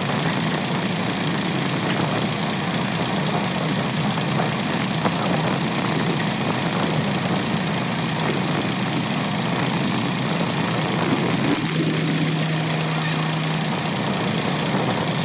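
Engine of a rice harvesting machine running steadily with a continuous mechanical din. A low steady hum joins it for about two seconds near the end.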